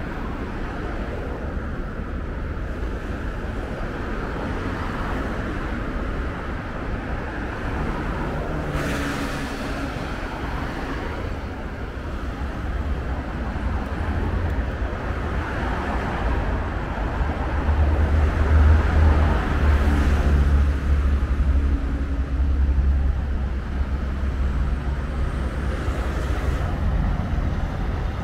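Steady road traffic of cars and a coach: a constant wash of tyre and engine noise with a deep rumble. It swells in the middle as heavier vehicles pass close by, then eases slightly.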